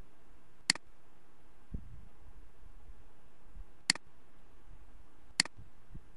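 Three sharp single computer mouse button clicks, a few seconds apart, over a faint steady hiss.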